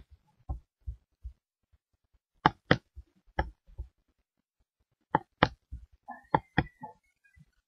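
Computer mouse button clicking: several short, sharp clicks, often in quick pairs, every second or two.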